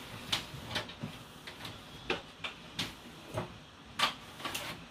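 Kitchen clatter: about ten light, sharp clicks and knocks at uneven spacing, roughly two a second.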